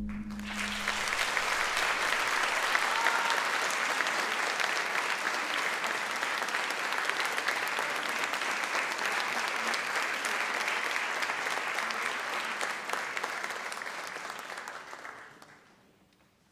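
Theatre audience applauding: dense, even clapping that fades away about fifteen seconds in.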